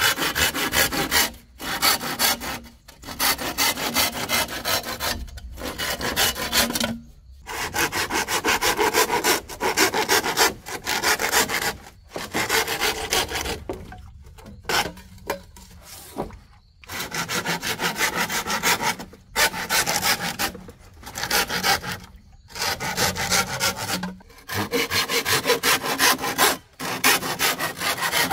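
Hand saw cutting through green bamboo culms: runs of fast back-and-forth strokes, stopping briefly between runs and once for a couple of seconds past the middle.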